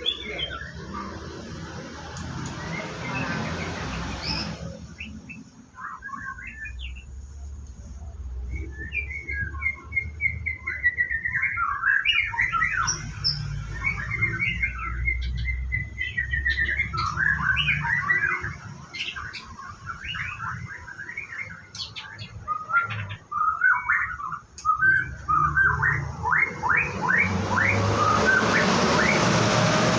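White-rumped shama singing in quick, varied chirping phrases. A rushing noise covers the first few seconds and returns near the end.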